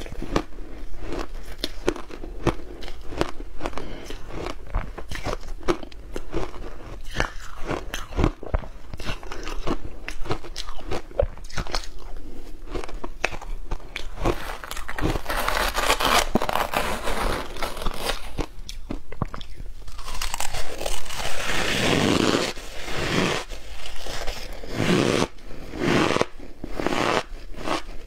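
Ice coated in matcha powder being bitten, crunched and chewed: a steady stream of crisp crunches, with denser, louder crunching past the halfway point. A metal spoon scraping into the ice in the bowl is heard about halfway through.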